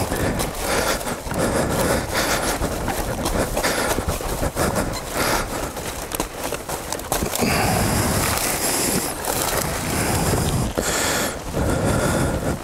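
Brush being cleared by hand off a dirt trail: branches and dry undergrowth rustling, scraping and crackling irregularly as they are dragged aside.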